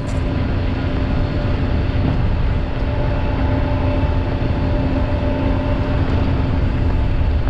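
Kawasaki Mule Pro FXR side-by-side under way on a gravel dirt trail: its three-cylinder engine running at a steady cruise with a constant hum, over a heavy low rumble from the tyres and wind.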